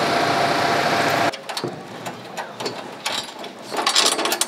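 A loud, steady motor running, with a faint steady whine, stops abruptly about a second in. Scattered small clicks and metallic knocks follow, busiest near the end, as hands work at a metal-tube platform frame.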